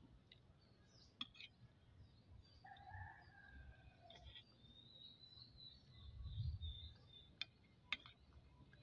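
Faint rooster crowing once, a falling call of about a second and a half starting about three seconds in, over light bird chirping. A low muffled rumble follows and a few sharp clicks come near the end.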